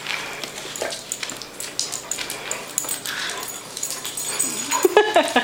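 Puppies playing, giving short whimpers and yips, with scattered small knocks and scuffs. A burst of higher yips comes near the end.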